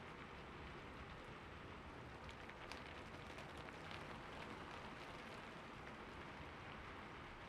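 Steady rain falling, with scattered sharper drops ticking out of the even hiss.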